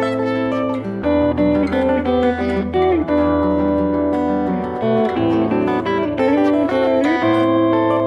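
Instrumental music led by plucked acoustic guitar, picked chords ringing over held bass notes that change every few seconds.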